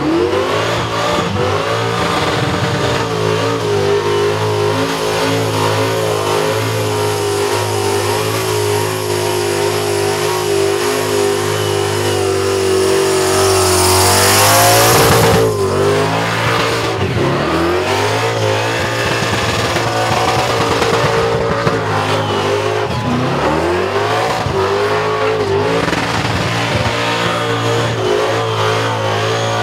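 Supercharged, methanol-fuelled Commodore burnout car held at high revs during a burnout. It surges louder about halfway through, then drops and climbs back up twice.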